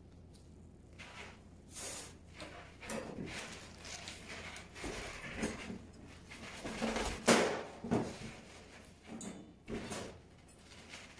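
Chef's knife cutting the stem and end off a whole jackfruit on a stainless steel worktop: a run of knocks and scrapes of blade and fruit on the metal, the loudest knock about seven seconds in.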